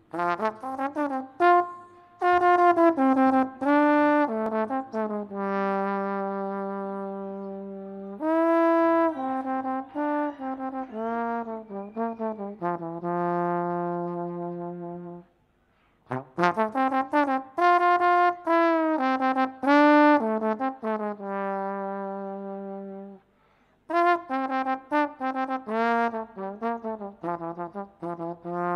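Solo trombone playing a melody in phrases of short notes and long held low notes, breaking off briefly twice.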